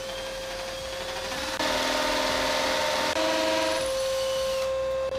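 Electric drill boring a hole into a wall of plasterboard over brick masonry with a 7 mm bit, its motor running at a steady pitch. From about a second and a half in it grows louder and rougher as the bit bites into the wall, easing back a little near the end.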